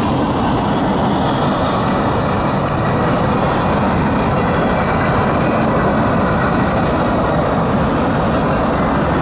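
Freight train rolling past: the steady rumble and rattle of the freight cars on the rails, with no clear changes.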